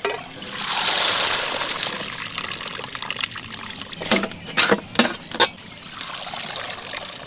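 Wet pieces of salted dried fish being scooped out of a pot of hot soaking water with a steel ladle, water splashing and pouring back into the pot for a couple of seconds. A few sharp clinks and knocks of the ladle and fish against the steel pot and plate follow.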